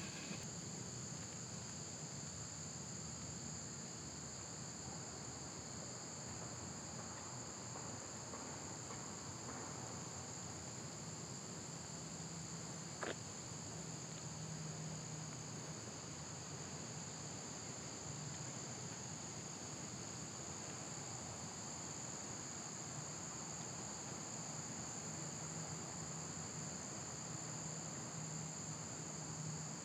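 A steady outdoor insect chorus, a continuous high-pitched chirring, with one sharp click about thirteen seconds in.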